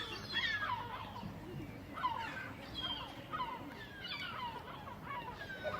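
Several gulls calling at once: many short cries, each sliding downward in pitch, overlapping one another in quick succession.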